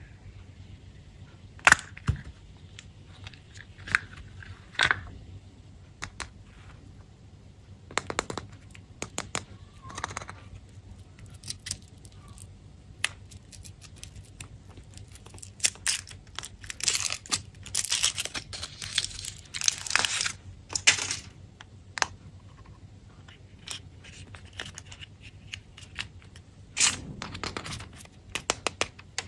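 Candy and chocolate-egg wrappers being unwrapped by hand: foil and plastic crinkling and tearing, with sharp clicks and taps. A dense run of crinkling comes in the middle.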